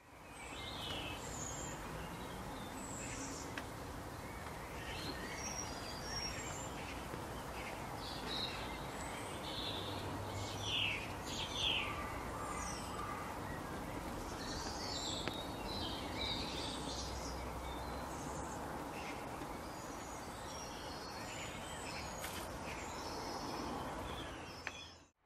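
Outdoor ambience: a steady background hiss with scattered bird chirps and calls, two of them louder about halfway through. It fades in at the start and out at the end.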